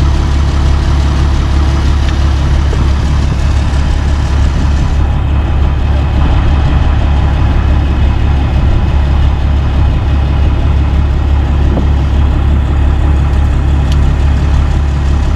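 Diesel engine idling steadily, a low even drone with no change in speed.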